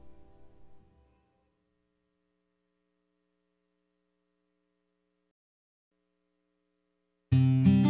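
Background music fading out in the first second, then dead silence for about six seconds, then loud music starting abruptly near the end.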